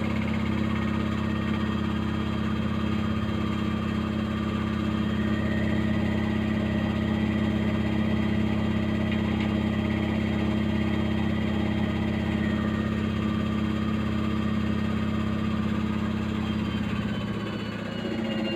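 Haier washing machine in its final spin: the drum and motor run at a steady high speed with a loud, even hum and whine. Near the end the hum changes and a high whine begins to fall in pitch.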